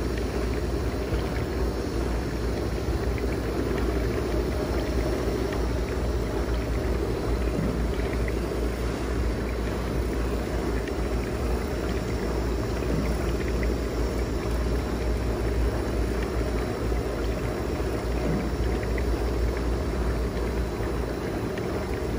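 HiDow handheld percussion massage gun running with a steady low buzz, its ball head pressed against a person's side and back.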